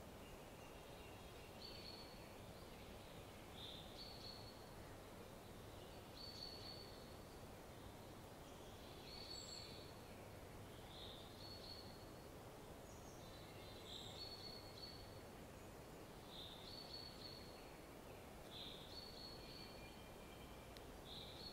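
Faint background noise with a small bird singing short repeated phrases in the distance, about one every two seconds.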